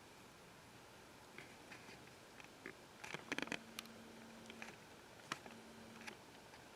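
Light clicks and taps at an uneven pace, bunched most thickly about three seconds in, with a faint steady hum under some of them.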